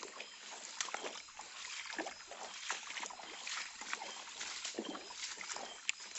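Footsteps wading through a shallow stream, water sloshing and splashing irregularly with each step.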